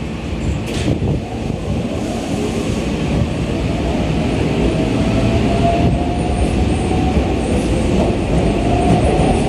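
Keikyu 600-series electric train pulling out along the platform: a steady rumble of wheels, with a motor whine from about three seconds in that slowly rises in pitch and grows louder as the train gathers speed.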